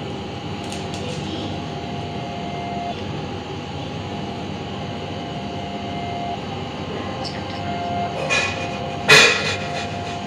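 A grey parrot gives one short, loud, harsh call near the end, after a smaller call just before it, over a steady mechanical hum.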